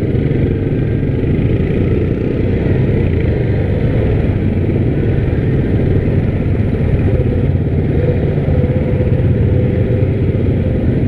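Yamaha Grizzly 700 ATV's engine running steadily while riding along the trail, a constant low rumble.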